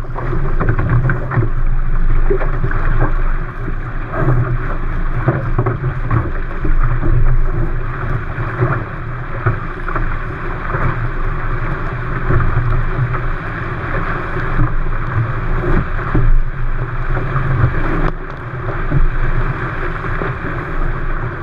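Wind buffeting the microphone over a steady rush and splash of water along the hull of an A-Class catamaran under sail.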